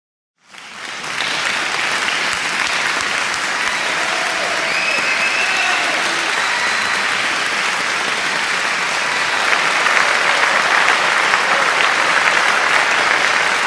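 Audience applauding, fading in about half a second in and staying loud, a little louder in the second half.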